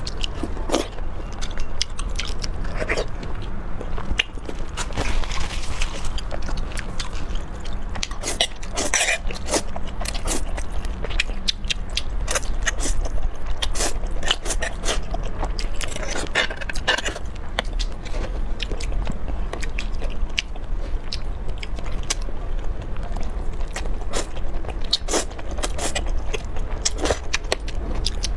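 Close-miked eating of thick sauced noodles: slurping and chewing, with many small wet mouth clicks and smacks, over a steady low hum.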